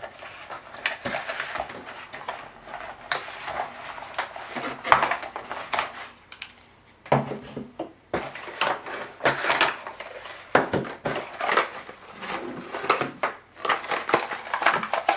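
Hands handling a cardboard packaging insert and unpacking bike-light parts: card rustling and sliding, with frequent short knocks of items being moved and set down on a table, and a brief lull around the middle.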